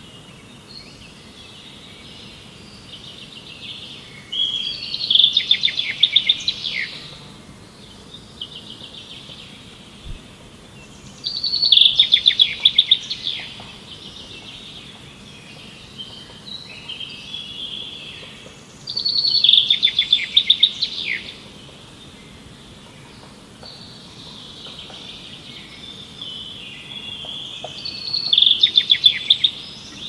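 A songbird singing: a loud phrase of rapid trilled notes, about two seconds long, repeated four times roughly every seven to eight seconds, with softer chirps and twittering in between. A faint steady background hiss runs underneath.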